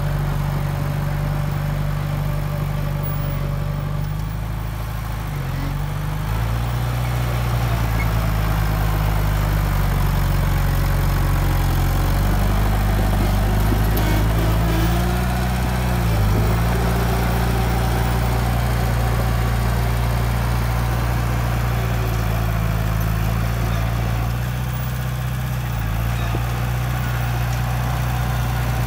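Komatsu D31P crawler bulldozer's diesel engine running steadily, its pitch dipping briefly twice, about five seconds in and again around sixteen seconds.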